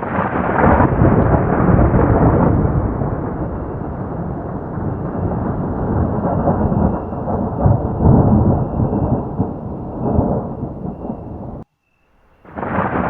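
Loud rolling thunder that swells and fades in waves, then cuts off abruptly; after a gap of under a second a new peal of thunder begins near the end.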